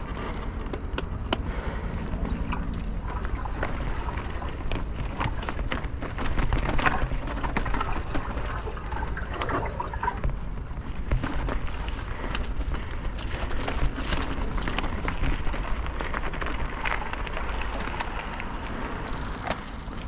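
Mountain bike descending a rough, rocky trail: tyres rolling over rock and the bike's chain and frame rattling, with frequent clicks and knocks over a steady low rumble.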